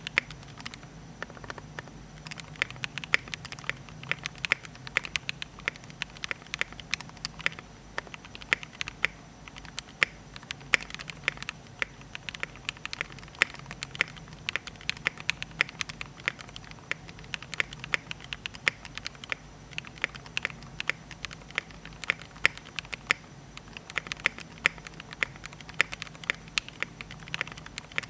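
Typing on a Tofu 60% mechanical keyboard with lubed, retooled Cherry MX Black linear switches on 60 g springs: a few scattered key clacks, then from about two seconds in a rapid, uneven run of keystrokes, several a second.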